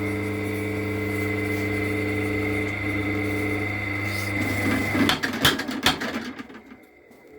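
Leaf spring power hammer's motor humming steadily, then cutting out about five seconds in. A short run of sharp knocks follows, and then it goes quiet.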